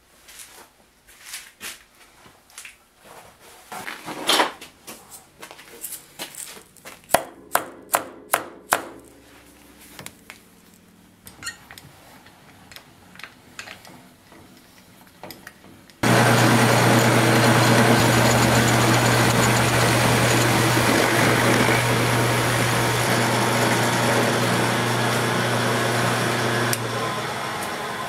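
Scattered knocks and clicks of metal handling and vise work. Then, a little over halfway, a mill-drill starts suddenly and its indexable-insert face mill cuts across a 6061 aluminum plate. The cut is a loud, steady noise over a low motor hum, easing off near the end.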